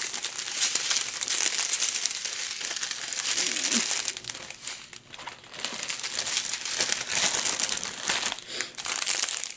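Small plastic bags of diamond painting drills crinkling and rustling as they are picked up and handled, in irregular bursts with a brief lull a little past halfway.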